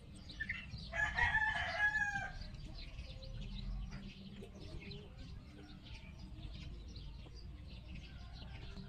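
A rooster crows once, about a second in: a pitched call lasting about a second and a half that drops in pitch at the end.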